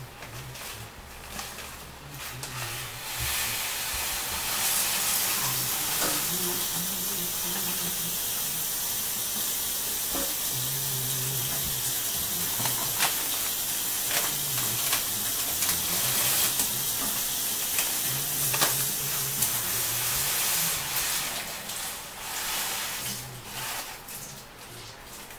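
Steady hissing sizzle from a hot pot on the stovetop as a packet of dry side-dish mix is shaken into it. It starts about three seconds in and dies down near the end.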